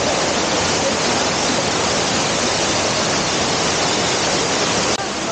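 Waterfall in full flow, swollen by the previous day's rain: a loud, steady rush of water.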